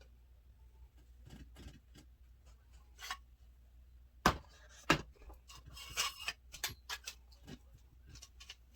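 Clicks and knocks from handling a ring light's tripod stand while its height sections are adjusted, with two sharp loud clacks a little after four and five seconds in and a quick run of clicks around six seconds.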